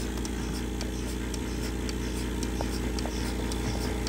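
Vevor electric milking machine's vacuum pump running with a steady hum and faint light ticking, the teat cups held in hand and not yet on the teats.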